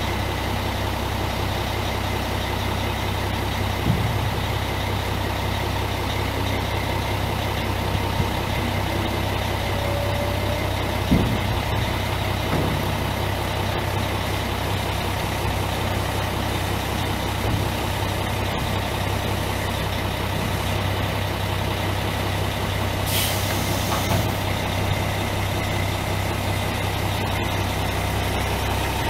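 Mack E7 12.0 L inline-six turbo diesel engine of a dump truck idling steadily, with a short hiss of released air about three-quarters of the way through.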